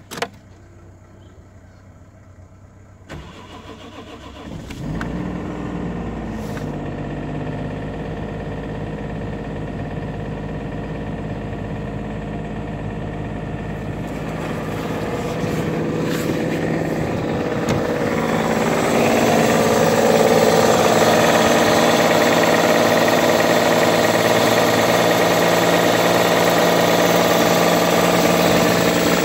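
Toyota 1JZ-GE 2.5-litre straight-six engine started from cold: it cranks and catches a few seconds in, then runs steadily, getting louder about two-thirds through. Cold, it makes a knock whose cause the owner does not know.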